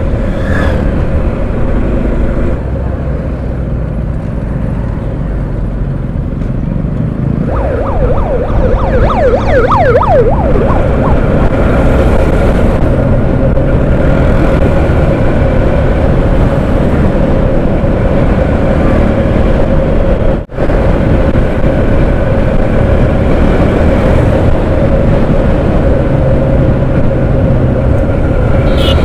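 Motorcycle riding along the road, heard from the rider's position: the engine runs steadily under wind rush, and it gets louder about a quarter of the way through. Just after that comes a quick run of short, high chirps, and the sound cuts out for an instant about two-thirds of the way through.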